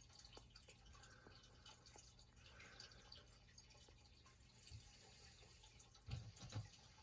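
Near silence: room tone, with a few faint ticks and some soft low bumps near the end.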